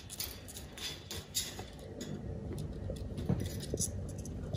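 Soft scattered clicks and rustles as a sugar glider moves about in its coconut-shell nest inside a wire cage, with a low handling rumble underneath. The clicks come mostly in the first second and a half.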